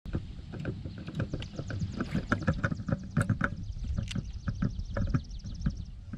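Small waves lapping and knocking against an inflatable paddleboard, with a low wind rumble. A fast, high-pitched ticking runs through most of it and stops near the end.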